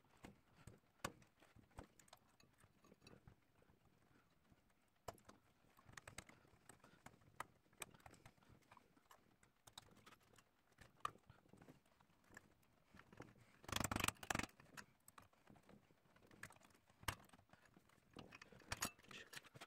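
Faint scattered ticks and scrapes of a small knife and flathead screwdriver picking hardened component glue away from the base of a large electrolytic capacitor on a circuit board, with a louder stretch of scraping lasting about a second two-thirds of the way through.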